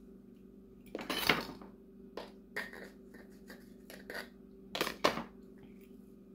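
Spice shakers shaken over a stainless steel mixing bowl as seasonings go in. A rattling shake comes about a second in, then scattered light clicks of the containers, and two sharper knocks near the end.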